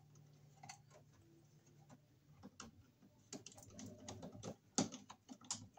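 Faint, irregular clicks and small knocks of a screwdriver and wire against a circuit breaker terminal in a metal electrical panel as a wire is fastened into the breaker. The clicks grow busier in the second half, with two louder clicks near the end.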